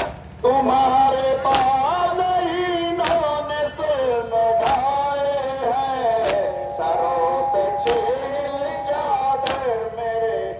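Male voices reciting a Muharram nauha (lament) in long, held melodic lines. A sharp slap of chest-beating (matam) keeps time about every second and a half, over a steady low hum.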